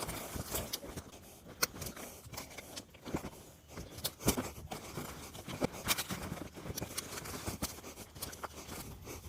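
Handling noise of a cover being fitted onto a pole chainsaw: a run of irregular sharp clicks and knocks with light scraping between them.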